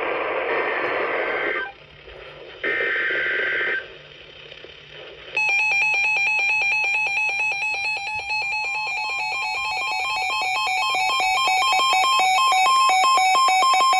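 Emergency Alert System signalling: two screechy digital SAME data bursts, followed about five seconds in by a harsh, rapidly pulsing two-tone EAS attention signal that grows a little louder.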